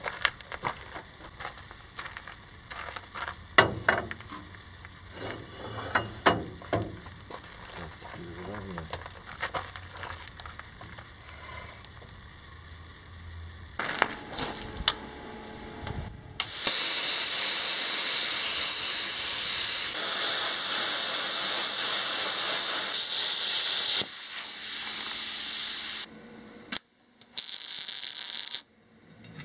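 Stick (arc) welding on a steel plate: the arc sizzles in a long, even run of about seven seconds, then in shorter runs that stop and start abruptly near the end. Before that come scattered metal knocks and clanks from work on the truck's front end.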